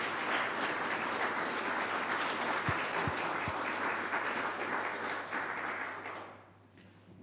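Audience applauding, a dense crackle of many hands clapping that dies away about six seconds in, with three brief low thumps about three seconds in.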